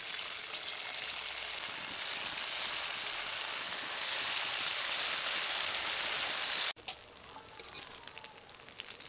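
Hot oil in an aluminium kadai sizzling as squares of papaya-and-lentil dhoka go in one by one to fry. The sizzle grows louder as more pieces are added, then drops suddenly near the end to a quieter sizzle with a few light clicks.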